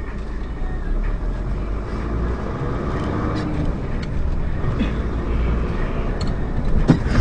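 Low, steady engine and road rumble heard from inside a moving vehicle, slowly growing louder, with a short sharp knock near the end.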